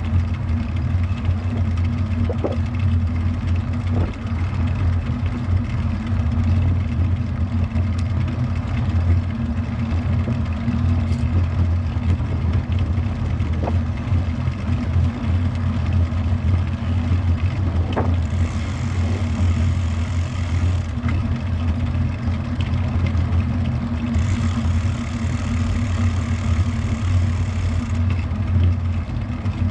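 Steady low rumble of wind and road noise picked up by a bicycle-mounted action camera while riding, with two stretches of added high hiss in the second half.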